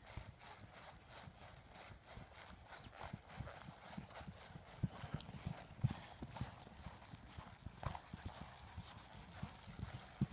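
Hoofbeats of a ridden horse on a dirt arena: dull, low thuds in a quick, uneven rhythm.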